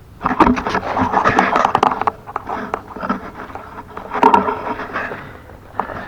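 Tools and metal parts clattering and scraping, in two loud spells full of sharp knocks.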